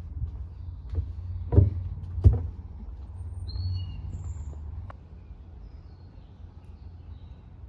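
A few short, high bird chirps over a low outdoor rumble. Two sharp knocks come about a second and a half and two seconds in, and the rumble drops away about five seconds in.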